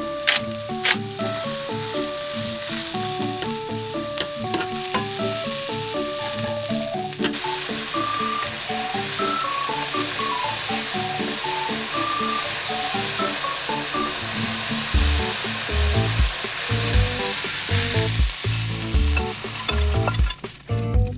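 Sliced mushrooms sizzling in oil in a nonstick frying pan, a steady hiss that runs through most of the stretch. Background music with a simple melody plays over it.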